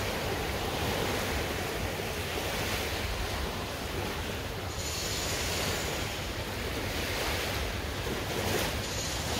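Steady rush of surf on a sandy beach, with wind rumbling on the microphone.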